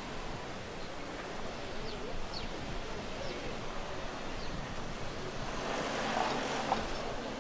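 Outdoor street ambience: a steady background hiss with a few short high chirps, and a swell of passing noise that builds and peaks about six seconds in.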